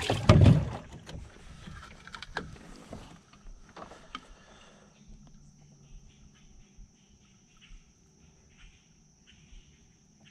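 Hand-handling noises in a small boat: a loud thump and rustle at the start, then scattered clicks and scrapes, quieter small ticks and rubbing as a worm is taken from a bait container and threaded onto a fishing hook. A faint steady high-pitched whine runs underneath.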